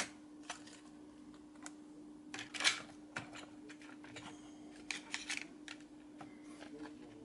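Light scattered clicks and scrapes of a Märklin BR 216 model locomotive being handled and turned around by hand, the loudest about two and a half seconds in, over a faint steady hum.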